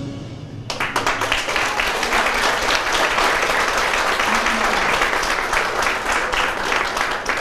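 Audience applauding, breaking out just under a second in and going on steadily as dense clapping.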